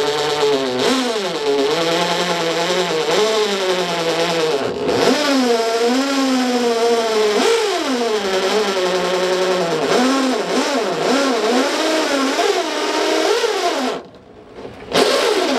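DeWalt corded electric drill running as its bit bores into the sheet-metal cab pillar, the motor pitch rising and falling as the trigger is eased and the bit bites. It stops about 14 seconds in, then runs again briefly near the end.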